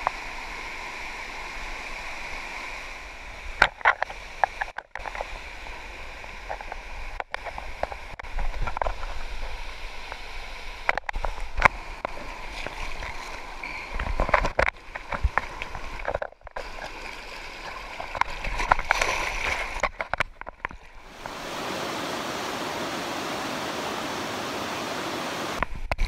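Waterfall cascades and stream water rushing steadily over rocks, with scattered sharp knocks and splashes. The sound cuts out briefly a few times, and from about 21 s a broader, even rush of water takes over.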